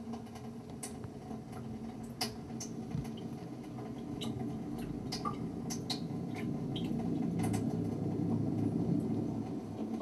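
Low electronic drone from a live synthesizer set, swelling louder from about halfway in, with scattered small clicks and crackles over it.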